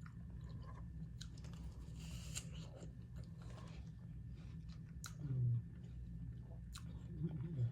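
A person chewing a mouthful of grilled salmon and lettuce salad close to the microphone, with crunching and wet mouth clicks. There are two brief low hums, one about five seconds in and one near the end.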